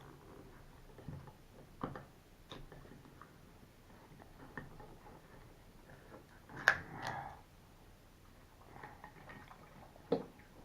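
A tin of sardines in hot sauce being handled and opened: faint scattered clicks and taps of metal, with one louder metallic click about two-thirds through and a sharp tap near the end, and faint wet squishing sounds.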